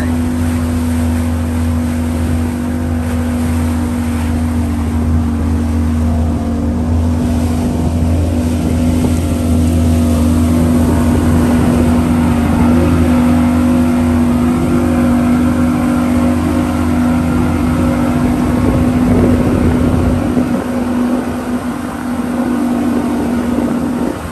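Motorboat engine running steadily with the boat under way, a loud constant hum; its deepest part drops away about 20 seconds in.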